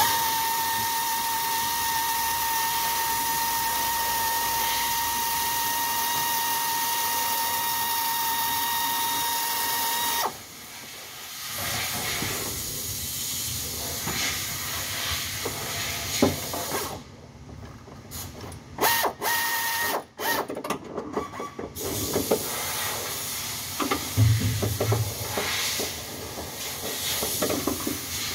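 Steady hissing with a faint high whistle for about ten seconds, then stops abruptly; after that, scattered metallic clicks, ratcheting and knocks of hand tools working in a car's engine bay.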